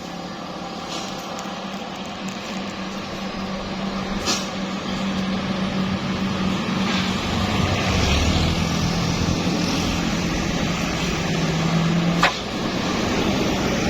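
Large bus engine running steadily on the road, a low hum over road noise that steps slightly lower about eight seconds in. It cuts off with a sharp click near the end.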